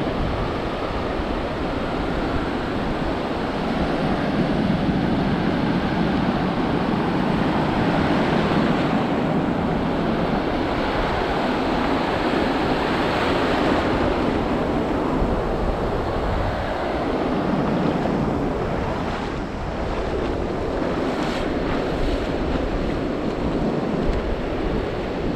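Ocean surf washing up on a sandy beach, with wind buffeting the microphone. A steady rush of noise that swells and eases.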